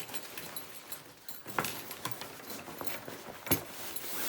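Handling noise from a new laptop backpack being picked up and turned over: rustling, with scattered light clicks and a sharper knock about three and a half seconds in.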